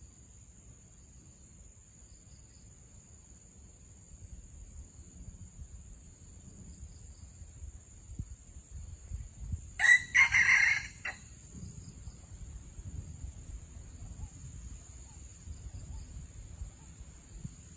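A red junglefowl cock crows once about ten seconds in, a single crow lasting just over a second. A steady high insect trill runs underneath.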